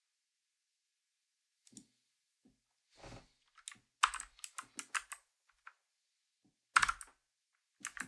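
Typing on a mechanical keyboard: a quiet start, then a run of keystrokes, quickest about halfway through, and a louder clatter of keys near the end.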